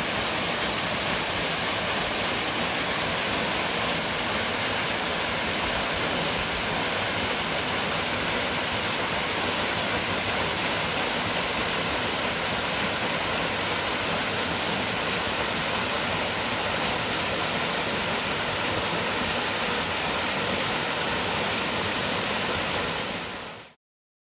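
Steady rushing of a 15 m plunge waterfall, water falling into its pool, which cuts off suddenly about half a second before the end.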